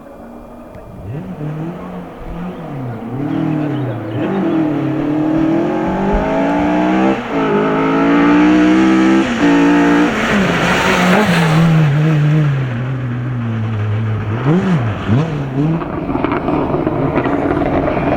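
Rally car engine revving hard through the gears as it approaches, its pitch climbing and then dropping sharply at each gear change. It passes at its loudest about eight to eleven seconds in, with a burst of rushing noise. The engine note then falls away, with a short throttle blip near the end.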